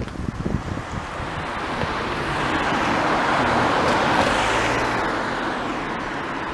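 A road vehicle passing by: its tyre and engine noise swells, is loudest about four seconds in, then fades away with a falling hiss.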